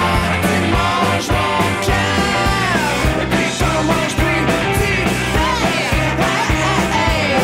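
Loud rock music with a steady drum beat and pitched lead lines that slide up and down.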